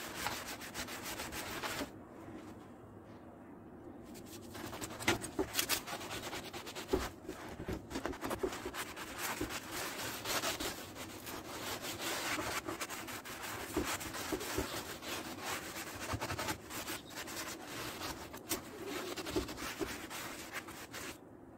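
A soapy sponge scrubbing greasy wooden kitchen cabinet doors: a wet, scratchy rubbing in quick back-and-forth strokes. It eases off for a couple of seconds about two seconds in, then carries on.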